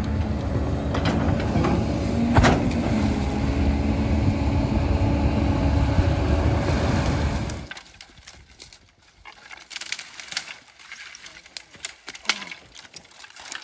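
Hydraulic excavator's diesel engine running steadily, with one sharp knock about two seconds in. A little past halfway it cuts off abruptly, leaving scattered snaps and rustles of dry branches being gathered by hand.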